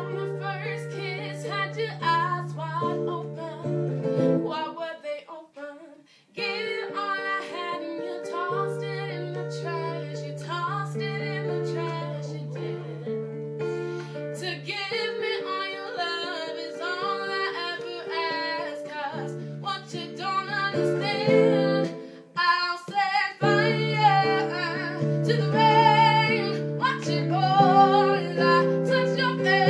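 A woman singing to a strummed acoustic guitar. The music drops out briefly about five seconds in, then resumes.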